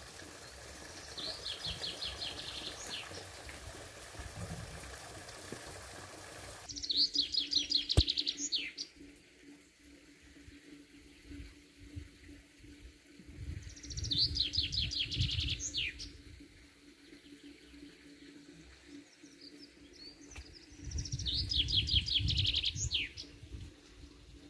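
A songbird sings four short phrases several seconds apart, each a quick run of notes ending in a flourish. A rushing background noise, like a stream, cuts off suddenly about seven seconds in, and there is a single sharp click about a second later.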